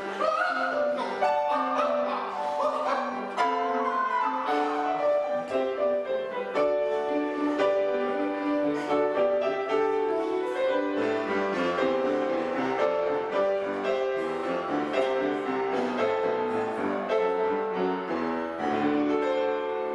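Grand piano playing a lively accompaniment, with a man's voice sliding up and down in pitch over it for the first few seconds, then piano carrying on alone.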